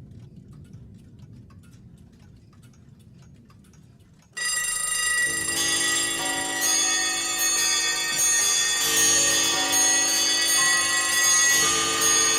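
A clock ticking faintly, then about four seconds in, loud bell-like ringing of several sustained tones starts suddenly and keeps going, the tones changing now and then.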